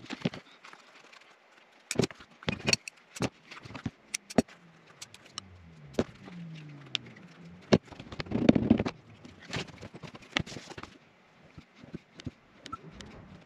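Hand tools and leather being handled on a cutting mat: scattered clicks and knocks as tools are picked up and set down, and a rubbing, shuffling noise of leather being shifted about two-thirds of the way through, the loudest part.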